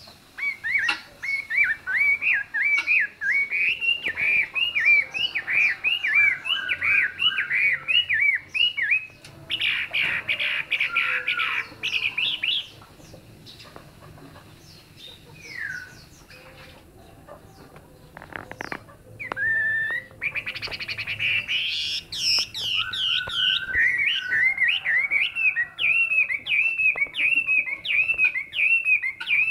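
Chinese hwamei (melodious laughing thrush) singing: loud runs of fast, repeated rising-and-falling whistled notes, with a fast trill about ten seconds in. It goes nearly quiet for a few seconds past the middle, then starts up again with rising whistles and more repeated phrases.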